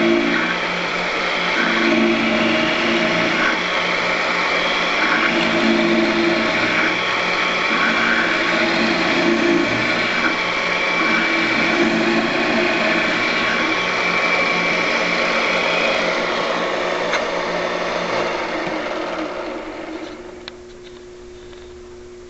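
Drill press running with a pointed 1/4-inch bit boring holes in wood, its sound changing in recurring spells as the bit cuts. About 18 seconds in the motor is switched off and winds down, leaving a low hum.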